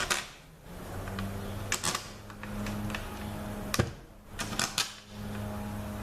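Sharp metallic clicks and clinks of Torx pan bolts and hand tools being handled, a few single knocks and a quick cluster of clicks near the end, over a steady low hum.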